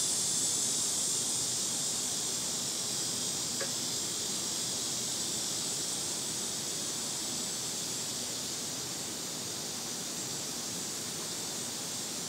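Cicadas buzzing in a steady, high-pitched drone that eases off slightly toward the end, with a faint single click about three and a half seconds in.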